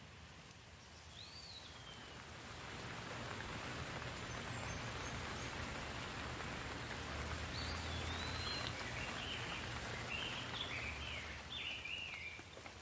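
Steady rain falling, growing heavier a couple of seconds in and easing near the end. A bird chirps once early and then calls in a quick series of short chirps in the second half.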